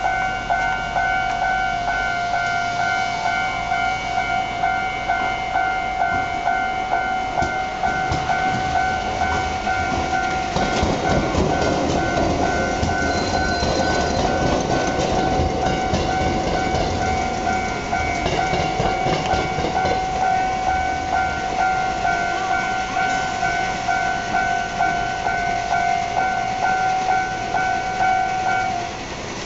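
Japanese level-crossing warning bell ringing, an electronic ding repeating about twice a second, which stops shortly before the end. From about eight seconds in, an Iyo Railway Takahama Line suburban electric train rumbles past for several seconds, its wheels clattering over the rail joints and the diamond crossing with the tram line.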